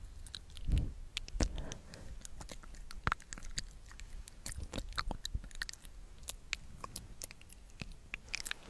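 Close-miked ASMR sticky mouth sounds: an irregular string of short wet clicks and smacks, several a second.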